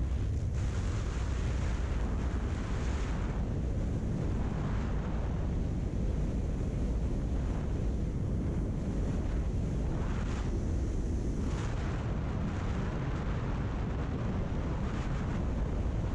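Wind rushing over the microphone of a moving motorcycle: a steady low rumble of wind with engine and road noise beneath, the hiss rising briefly twice.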